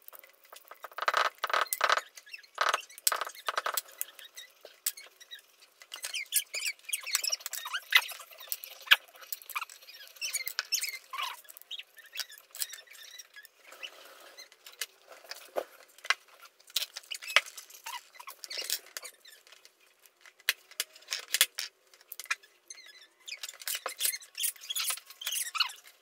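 Irregular clicks and scrapes of hard plastic parts and small screws as a Roomba robot vacuum's wheel module is unscrewed and taken apart with a screwdriver, with pieces set down in a plastic bin. Busiest near the start, in the middle and near the end.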